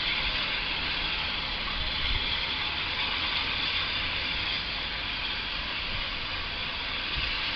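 Steam locomotive standing at the platform with steam hissing steadily.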